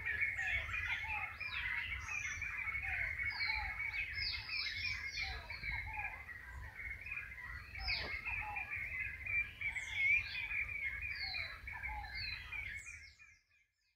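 Birds chirping and calling, many short chirps over a steady high chatter, cutting off abruptly near the end.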